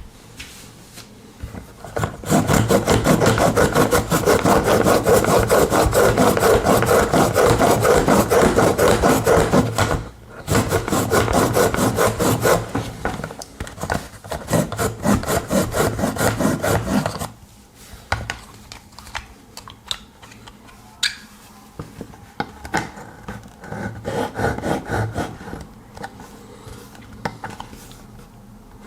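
Pocket knife blade being drawn back and forth through an Ikea Aspekt sharpener, its two rotating wet grinding stones grinding the edge in a fast rasping run. The strokes are loud for about eight seconds, stop briefly, continue for about seven more, then turn softer and scattered.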